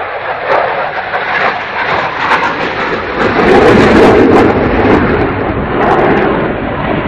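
Fighter jet engine roar, a steady noisy rumble with some crackle that grows louder about three seconds in.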